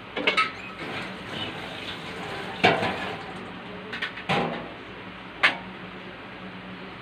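Cookware and utensils clinking and knocking in a kitchen: a few sharp knocks, the loudest about two and a half seconds in, with more near four and five and a half seconds, over a steady low hum.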